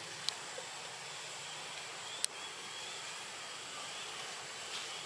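Forest ambience: an even hiss with a thin, steady high whine, broken by two sharp clicks, a small one just after the start and a louder one a little past two seconds in.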